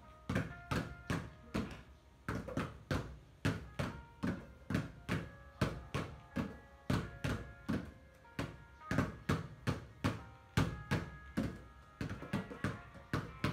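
Two basketballs being dribbled on a wet tiled floor: a steady run of bounces about three a second, sometimes landing together and sometimes alternating. Faint music plays underneath.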